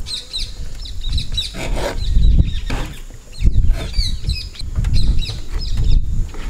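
A kitchen knife cutting through a block of cheddar cheese on a wooden board, with a few separate cuts. Birds chirp over it again and again, with a low rumble underneath.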